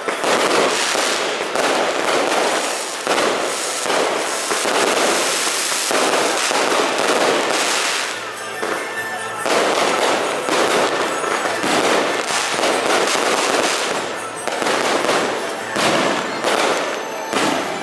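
Fireworks and firecrackers going off in a dense, continuous barrage of crackling pops.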